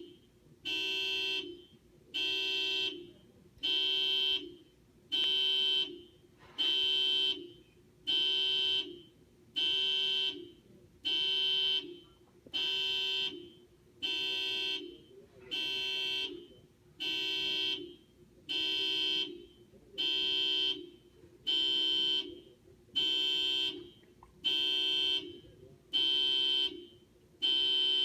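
Car alarm going off, sounding the horn in steady, evenly spaced honks, about one every second and a half, each lasting just under a second.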